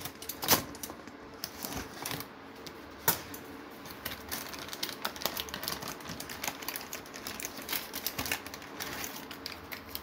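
A paper-lined springform cake tin being unclipped and lifted off a baked cake, its baking-paper lining crinkling and rustling as it is peeled back: a steady run of small crackles and clicks, with two sharper clicks about half a second in and again around three seconds in.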